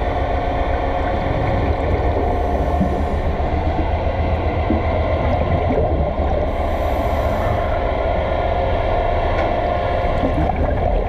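Steady underwater machinery hum: a low rumble under several steady tones. A brief hiss comes in twice.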